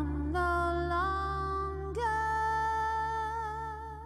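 Female voice singing long held notes, stepping up a couple of times, the last held from about two seconds in with slight vibrato and fading away, over a sustained low bass note from the band.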